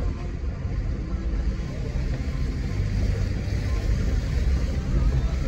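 Steady low rumble of a vehicle driving over a rough, stony unpaved track, heard inside the cabin: engine, tyres on rocks and body shaking.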